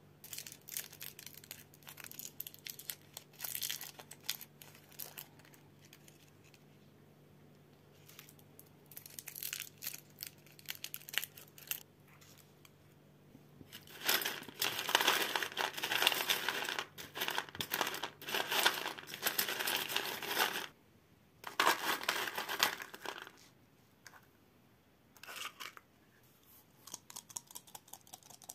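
Plastic twist wrappers of chewy caramel candies crinkling and rustling as they are handled and unwrapped. It comes in several bursts with short quiet pauses, the longest and loudest stretch about halfway through.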